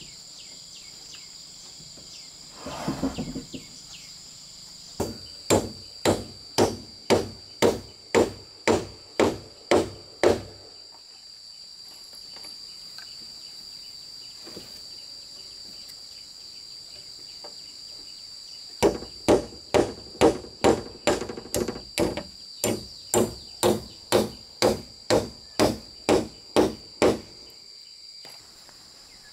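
Hammering at a steady pace of about two blows a second, in two runs: roughly eleven blows, a pause of several seconds, then about seventeen more. A steady high insect drone continues underneath.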